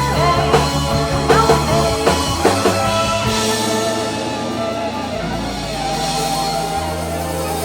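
Rock band playing live: guitar over held bass notes and a drum kit, with cymbals washing out about halfway through.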